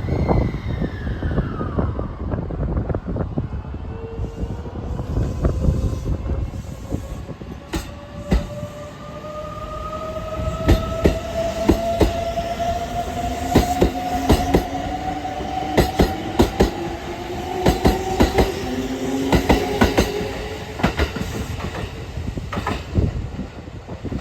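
Kintetsu 23000 series Ise-Shima Liner electric train pulling away from a station. Its traction motor whine climbs steadily in pitch as it accelerates. From about ten seconds in come repeated sharp clacks of wheels over rail joints.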